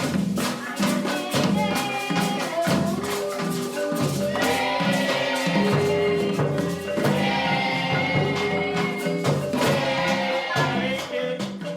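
Music with marimba and hand percussion, including shakers, playing a busy rhythm under held pitched notes.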